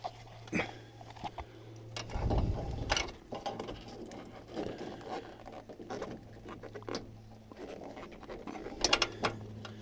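Plastic wiring-loom connectors and wires being worked through a tight opening in a van door: irregular clicks, scrapes and knocks, with a dull thud about two seconds in and a quick run of sharp clicks near the end. A steady low hum runs underneath.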